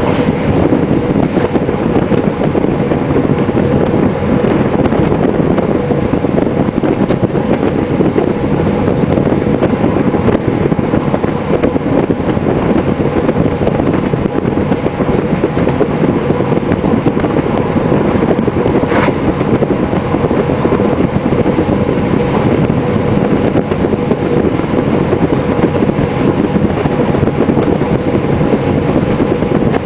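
Class 628 diesel multiple unit running at steady speed, heard from the cab: a steady engine drone with a constant hum over the rumble of the wheels on the rails. One brief sharp sound about two-thirds of the way through.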